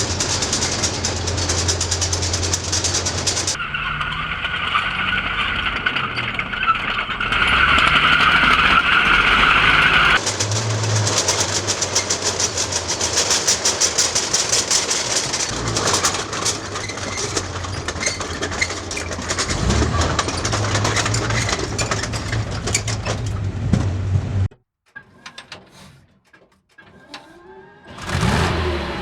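Tiger II heavy tank running: its Maybach V12 engine and steel tracks clattering, in separate recordings cut one after another. From a few seconds in to about ten seconds there is a steady high squeal over the engine, and near the end the sound drops to a quiet passage for a few seconds before surging loud again.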